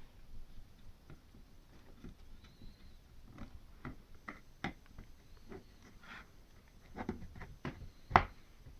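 Scattered clicks and knocks of computer parts being handled and fitted during PC assembly, with one loud knock about eight seconds in.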